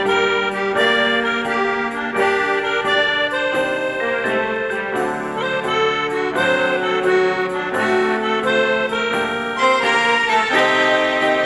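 Instrumental interlude of an enka song's accompaniment between sung verses: a melody played over held chords, with no singing.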